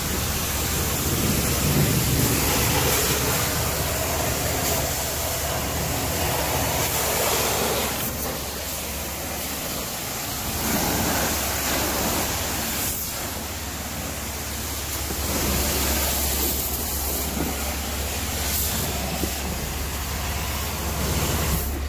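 High-pressure wand at a self-serve car wash spraying water onto a car's body and into its wheel well: a steady hiss of spray that swells and eases as the jet moves over the panels, over a low steady hum.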